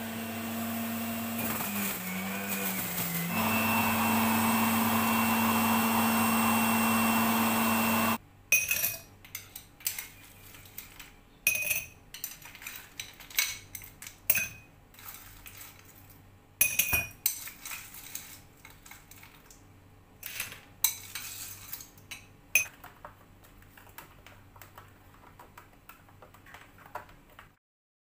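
Electric juicer motor running steadily, its pitch sagging briefly as a carrot is pushed down the chute, then stopping abruptly about eight seconds in. After that, scattered sharp clinks of ice cubes dropped into drinking glasses.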